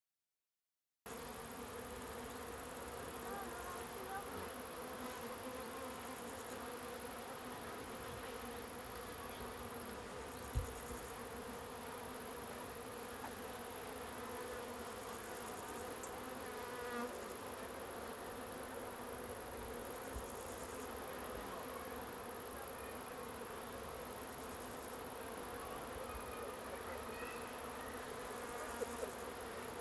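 Steady buzzing of bees and other insects, starting about a second in, with a brief low thump about ten seconds in.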